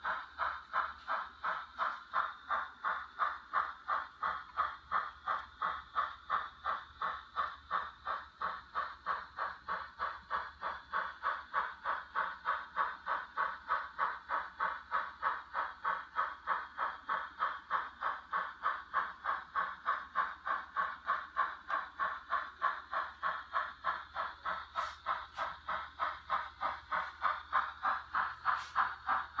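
ESU LokSound sound decoder in an N scale Kato 2-8-2 steam locomotive playing steam exhaust chuffs through the model's tiny speaker as it runs, a steady rhythm of about three chuffs a second. A couple of faint clicks come near the end.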